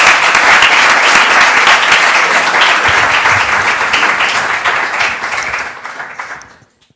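Audience applauding with steady clapping, fading out near the end.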